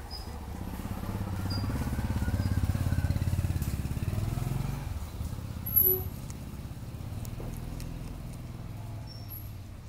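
A motor vehicle engine running, growing louder to a peak about three seconds in and then fading back to a lower hum. A few faint high chirps come over it.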